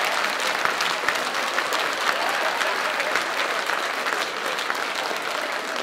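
Sustained applause from many people clapping, thinning slightly near the end.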